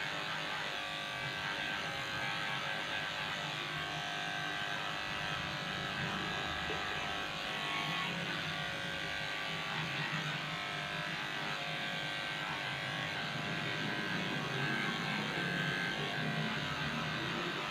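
Cordless electric pet clipper running steadily as it shaves a dog's coat.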